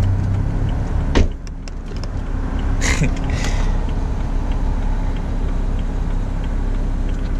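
Electric power-seat motor in a 2011 BMW 328i whirring as the driver's seat is adjusted, then stopping with a click about a second in. A short rustle follows about three seconds in.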